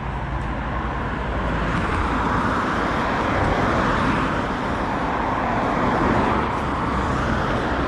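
Road traffic: the tyre and engine noise of a car passing on the road, swelling over a few seconds and then easing.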